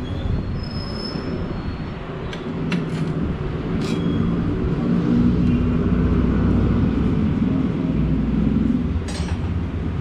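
A loud, low engine-like rumble that swells about halfway through and eases near the end. A few sharp clicks, two early on and one near the end, come as the scooter's fuel-injector connector and fittings are worked loose by hand.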